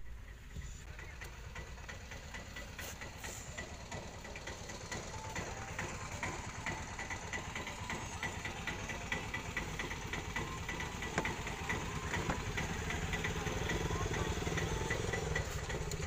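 Car engine running with a steady low rumble, heard from inside the cabin, with a faint, regular ticking over it.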